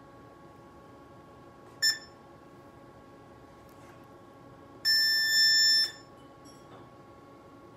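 Smart-Wave BS-SWT2X shockwave therapy machine beeping as its touchscreen is pressed: one short beep about two seconds in, then one long beep lasting about a second as the unit switches to its treatment screen. Both beeps sound over a faint steady hum.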